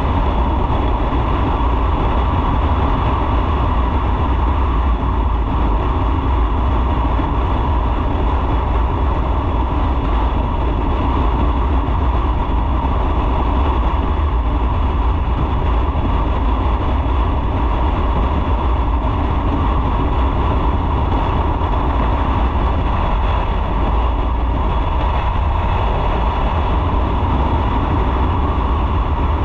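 Motorcycle on the move: a steady, loud rumble of engine, road and wind noise that never lets up.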